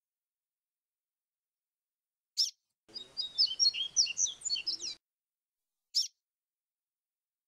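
Papa-capim seedeater singing a two-second phrase of quick whistled notes in the 'grego flautado' style, with one sharp chirp shortly before it and another about a second after it. The recording is noise-cleaned, so there is dead silence between the sounds.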